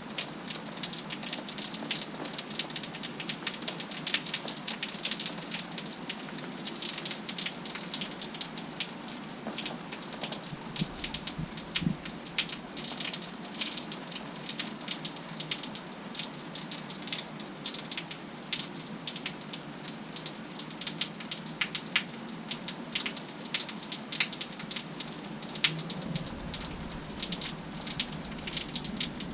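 Steady rain falling, with many separate drop hits and splashes. A brief low rumble comes a little before the middle and another near the end.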